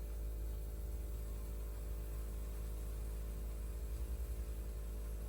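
Steady electrical mains hum, a low drone with several overtones that does not change.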